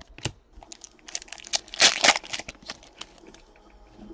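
Trading card pack wrapper crinkling and tearing as a pack is handled and opened, a dense run of crackles loudest about two seconds in.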